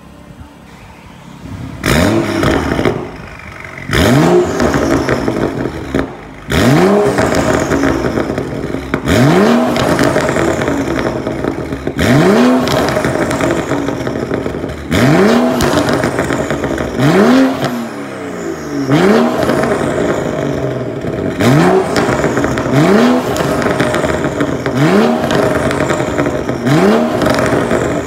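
BMW 640i's turbocharged 3.0-litre inline-six, fitted with a Fi Exhaust valved catback, catless downpipe and quad tips, idling low for about two seconds and then blipped over and over in sharp free revs. Each rev's pitch jumps up and falls straight back.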